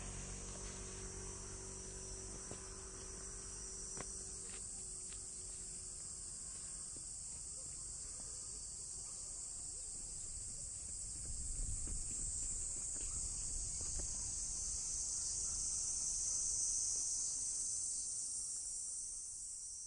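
Steady chorus of summer insects, a dense high-pitched shrilling that grows louder in the second half, over a low outdoor rumble.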